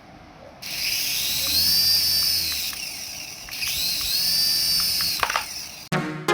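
Small electric motor of a radio-control toy whining as it speeds up and slows down, twice over, with a few clicks near the end.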